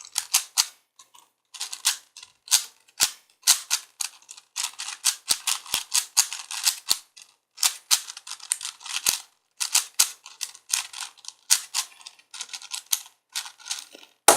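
4x4x4 Rubik's cube being turned quickly by hand: rapid runs of plastic clicks and clacks as the layers turn, broken by short pauses.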